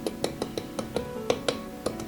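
Music: acoustic guitar playing a quick run of plucked notes, each sharply attacked and briefly ringing.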